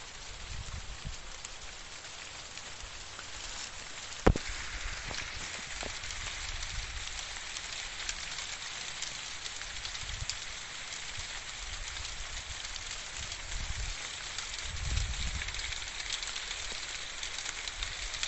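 Steady rain falling, the patter growing denser after about four seconds. A single sharp knock about four seconds in is the loudest sound.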